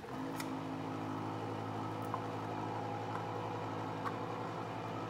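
Electric can opener switching on and running steadily, its motor humming as it turns the can and cuts around the lid.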